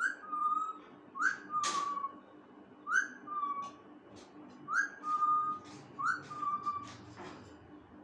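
Alexandrine parakeet whistling its copy of a Redmi phone ringtone: about five short phrases, each a quick rising note dropping into a held steady note, at uneven gaps. One brief sharp noise comes not quite two seconds in.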